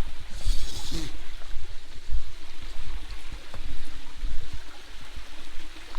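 Running water of a small stream and waterfall, a steady rushing, with heavy low rumbling on the microphone throughout and a brief brighter hiss about half a second in.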